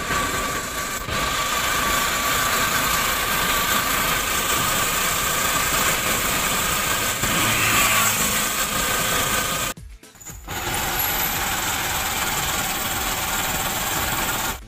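Motorcycle-sidecar tricycle running along a road: a steady, loud rush of engine and road noise, broken by a brief dropout about ten seconds in.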